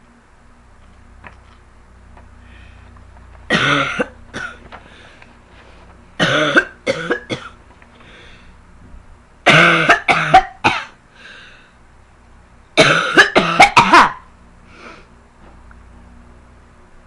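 A girl coughing in four fits about three seconds apart, each a quick run of several loud, harsh coughs.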